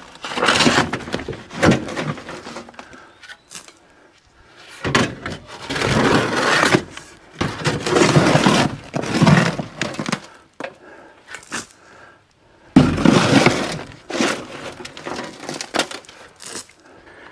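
A steel shovel scraping and scooping gravel fill out of a dump cart's bed, with the stones rattling and sliding out in three long rushes and sharp clinks between them.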